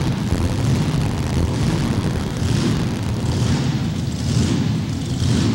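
Mini rod pulling tractor's engine running with a loud, deep, steady rumble.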